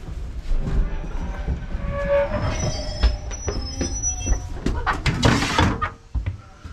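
Heritage steam train carriage as the train draws into the platform: a low rumble and knocks from the running gear, a brief pitched squeal about two seconds in, then thin high squealing from the wheels and brakes. A loud hiss comes about five seconds in.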